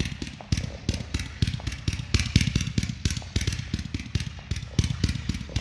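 Consumer firework cake (multi-shot repeater) firing shot after shot in a fast, even string of sharp pops, about five a second, that stops suddenly at the end as the cake finishes.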